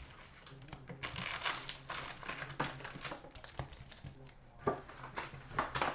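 Card pack wrappers crinkling and tearing as a box of 2014-15 Upper Deck SPX hockey cards is opened, with scattered clicks of handling and a sharper knock nearly five seconds in.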